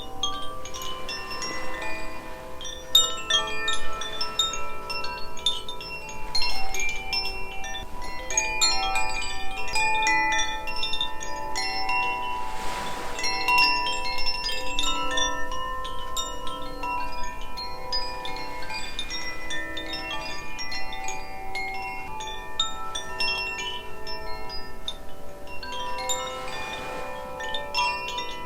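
Two Koshi chimes, Aria and Ignis, rung together: their strikers tap the tuned metal rods in a continuous, irregular tinkling, many ringing tones overlapping and sustaining.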